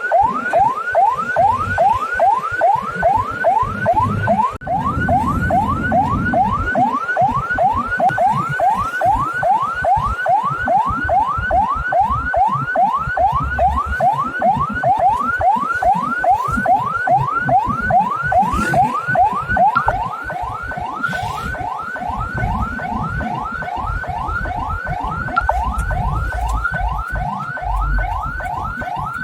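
Ambulance electronic siren sounding a fast yelp: a rising wail repeated about three times a second without a break, with a low rumble underneath.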